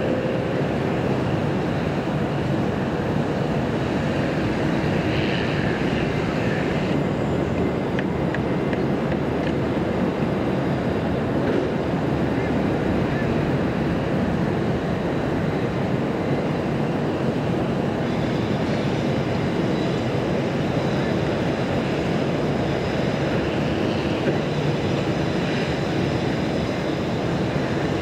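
Steady, even rumble of distant city traffic and electric commuter trains heard from high above, with no single pass standing out; faint high-pitched tones join about two-thirds of the way through.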